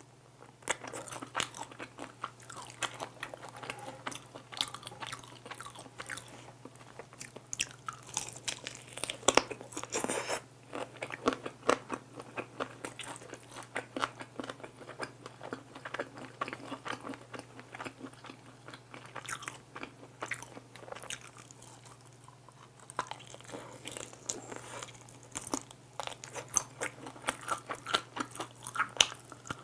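Close-miked biting, crunching and chewing of sauced fried chicken, with dense crackly bites that ease off a little past the middle and then pick up again. A faint steady low hum runs underneath.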